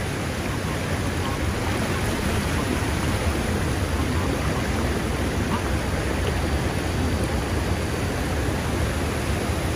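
Steady rushing of floodwater with a low rumble as a vehicle drives slowly along a flooded road.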